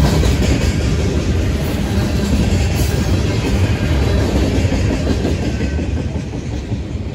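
Ballast hopper cars of a freight train rolling past, their steel wheels rumbling and clacking over the rails. The sound eases off near the end as the last car goes by.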